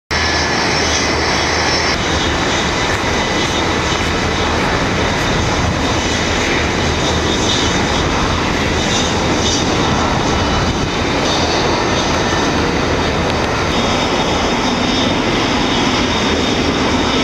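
Jet airliner engines running steadily: a loud, even rush with a thin high whine over it.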